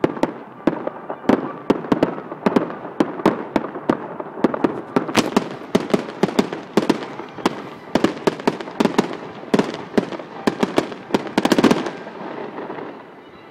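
Fireworks going off in a rapid, irregular string of sharp bangs, a few a second, building to a dense cluster near the end and then stopping abruptly.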